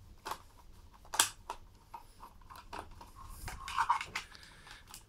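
Hand Phillips screwdriver turning screws out of a cordless drill's plastic housing: faint, irregular small clicks and scrapes of the tip in the screw heads, with one sharper click about a second in.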